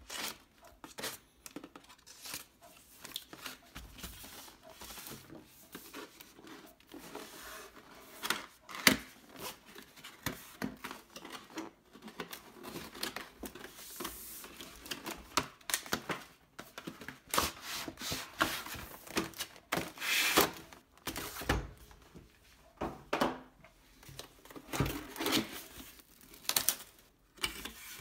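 Cardboard and plastic packaging being handled while a keyboard box is opened: irregular rustling, crinkling and tearing with scrapes and light knocks, louder around nine and twenty seconds in.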